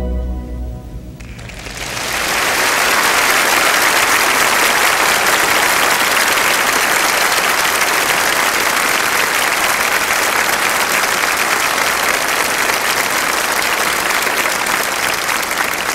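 A pipe organ's final chord fades out about a second in. A large audience then breaks into steady, sustained applause.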